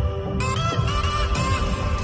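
Background music: an instrumental passage of a song, with no singing.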